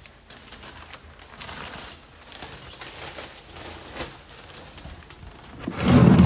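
A person's barking cough: a sudden, loud, low burst near the end, after a stretch of faint background noise with a few small clicks.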